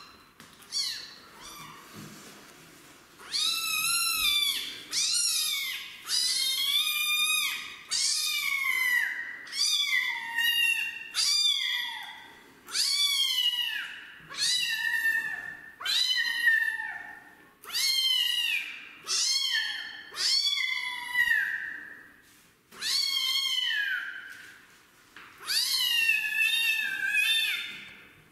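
Young kitten meowing loudly and over and over, about one high-pitched call a second, each call rising then falling, after a couple of fainter ones at the start.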